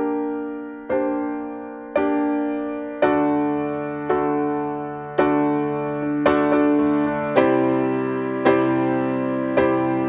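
Background piano music: slow chords struck about once a second, each ringing and fading, with a deeper bass line coming in a few seconds in.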